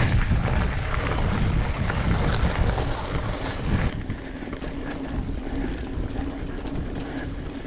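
Wind rushing over the camera microphone and mountain-bike tyres rolling on gravel, getting quieter about four seconds in as the bike moves onto smooth dirt singletrack, where a faint steady hum is left.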